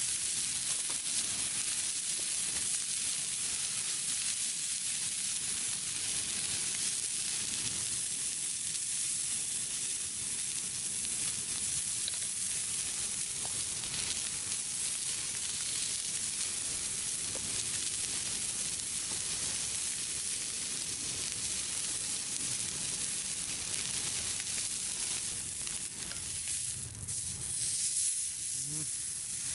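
Thick beef steak sizzling steadily on a hot thick iron griddle plate.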